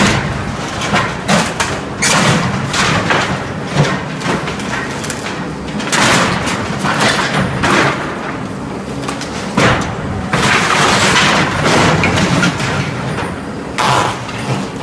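Cat 226B skid-steer loader's diesel engine running under load while its grapple bucket crushes and rips apart wooden racking: repeated cracks, crashes and thuds of splintering timber, with the longest crashing stretches about six seconds in and again from about ten to twelve seconds.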